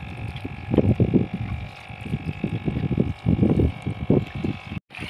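Steady hum of a small fishing boat's engine, with irregular low rumbles of wind and water buffeting the microphone. The sound cuts out for a moment near the end.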